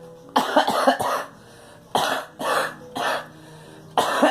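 A girl coughing in fits: a quick run of about three coughs, then three more spaced coughs about two seconds in, and another starting near the end.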